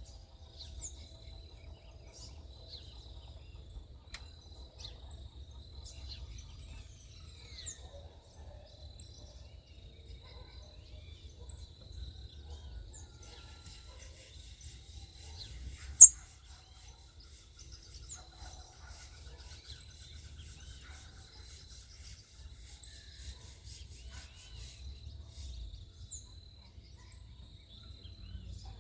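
Backyard birds giving short scattered chirps over a steady, pulsing insect buzz and a low background rumble. A single loud sharp click comes about halfway through.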